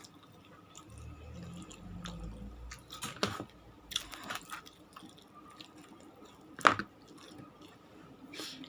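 Close-up eating sounds: chewing and biting into food, with scattered sharp clicks, the loudest about seven seconds in, and a low rumble for a couple of seconds about a second in.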